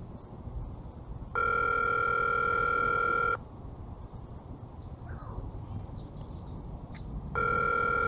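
Ringback tone of an outgoing phone call heard through an HTC Evo Design's speakerphone: two steady rings, each about two seconds long and about four seconds apart. It is the sign that the call is ringing at the other end, not yet answered.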